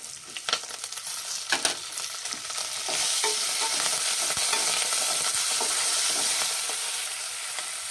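Food frying in hot oil in a pan, with a utensil stirring and clicking against the pan in the first few seconds; the sizzle jumps louder about three seconds in and then holds steady.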